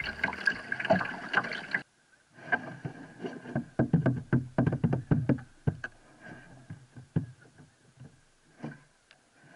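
Water splashing and lapping against a kayak's bow, with paddle strokes, as it moves through small choppy waves. An abrupt cut about two seconds in; the splashing is busiest in the middle and thins out toward the end.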